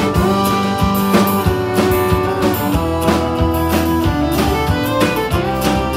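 Live country band playing a song, with strummed acoustic guitar, electric guitar and a drum kit keeping a steady beat.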